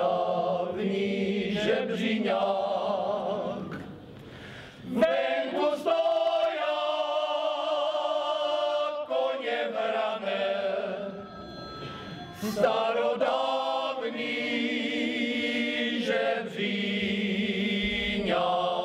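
Male folk choir singing a Moravian folk song unaccompanied, in several-part harmony. It is sung in phrases with long held chords and breaks off briefly twice between phrases.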